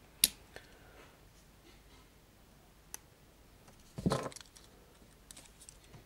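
Swiss Army pocket knives being handled: a sharp metallic click just after the start, then quiet handling with a faint click near three seconds, a short louder knock and rustle about four seconds in, and a few small clicks near the end.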